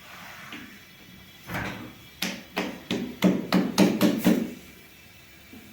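A quick run of hard knocks, about three a second, starting about a second and a half in and stopping about three seconds later, from work in the kitchen.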